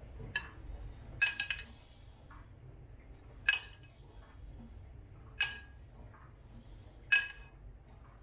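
A metal spoon clinking against a ceramic bowl as it stirs and scoops a sauce: single ringing clinks every second or two, with a quick run of three about a second in.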